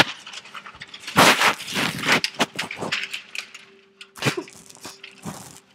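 Clear plastic bag, used as a piping bag, crinkling and rustling in irregular bursts as it is filled and squeezed, with a sharp click right at the start.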